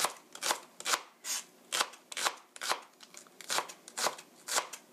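Kitchen knife slicing a welsh onion into thin rings on a cutting board: a steady run of crisp chops, about two a second.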